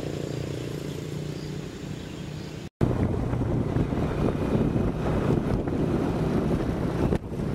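An engine running steadily, its drone fading over the first few seconds; after an abrupt cut, wind buffeting the microphone over a rougher engine drone.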